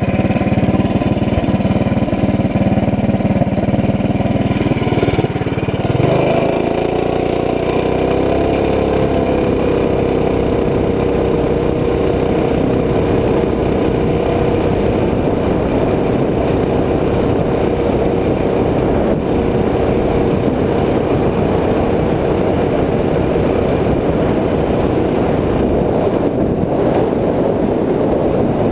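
Governor-deleted Tillotson 212 single-cylinder engine on a minibike running at full throttle, with wind rushing over the microphone. About six seconds in the engine note climbs, then holds steady at high revs for the rest of the run.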